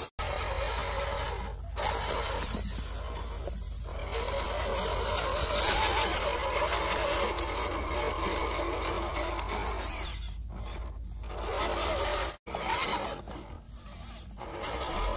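Electric motor and gear train of a 1/10-scale RC rock crawler running as it crawls over dirt and rocks. The sound cuts out briefly twice.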